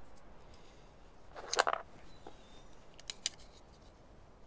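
Small handling noises from a folding knife being reassembled: a short scrape about a second and a half in, then two sharp clicks near three seconds, as the G10 handle scale is fitted against the steel liner.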